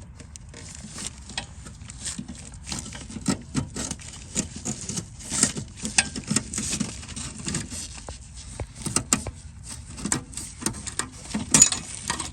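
Irregular metallic clinks, taps and scrapes as a rear brake line is worked loose by hand under a car.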